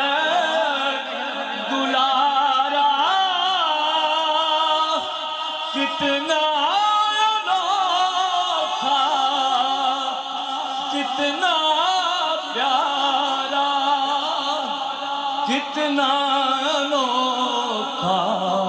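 A man singing a naat solo into a microphone, in long, held notes that waver and bend in pitch.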